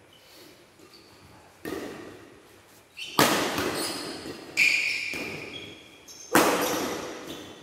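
Badminton rally: a shuttlecock struck by rackets, a softer hit about two seconds in, then three loud sharp cracks about a second and a half apart, each echoing in a large hall. Short squeaks of shoes on the court mat come between the shots.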